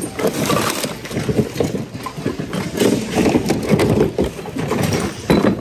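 Hard items knocking and clattering together in quick, irregular succession as a bin of mixed secondhand goods is rummaged through.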